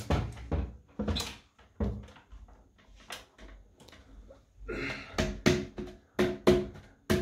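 Knocks and bumps of a heavy reclaimed scaffold-board shelf being lifted and pushed onto steel floating-shelf bracket rods, a tight fit. About ten sharp knocks, some with a short ring, more of them in the second half.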